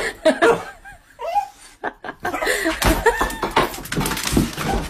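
People laughing, with a couple of dull thumps in the second half.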